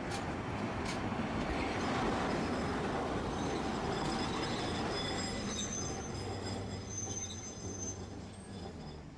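Tosaden streetcar running, heard from inside at the front: a steady rumble of wheels on rail with two sharp knocks in the first second. From the middle on, a high, thin wheel squeal joins it, and the noise dies down near the end.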